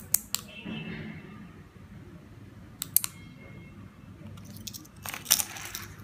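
Sharp clicks from pressing the buttons of a 433 MHz keyfob remote that switches a relay receiver: a pair right at the start and another pair about three seconds in, then a quicker run of clicks with handling noise near the end.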